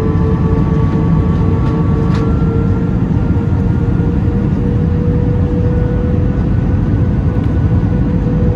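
Airbus A319 cabin noise heard inside the cabin during descent: a loud, steady roar of engines and airflow. A humming engine tone edges slightly up in pitch, and fainter higher tones drop out about two seconds in.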